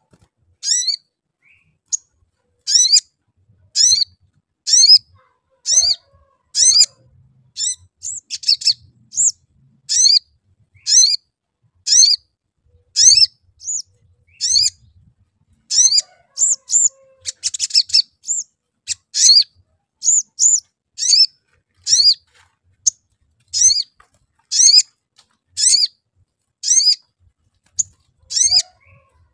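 Olive-backed sunbird calling: sharp, high 'cuit' chirps repeated about once a second, each a quick falling note, with a short rattling chatter ('crecet') about 17 seconds in.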